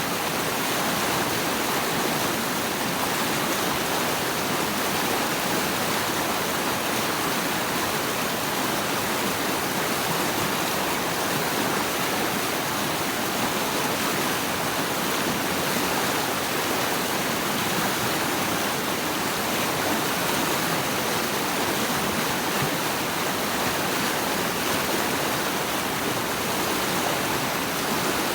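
Steady rushing of flowing water, an even, unbroken hiss with no changes or distinct splashes.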